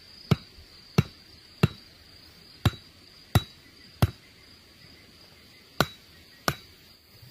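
A series of sharp knocks, eight in all at about one every two-thirds of a second, with a pause of nearly two seconds after the sixth. A steady high insect buzz runs underneath.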